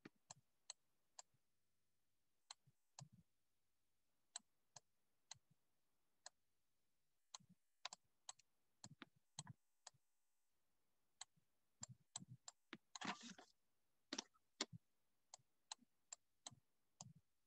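Near silence broken by faint, irregular clicks and taps of a stylus on a tablet while handwriting, with a brief scratchy sound about 13 seconds in.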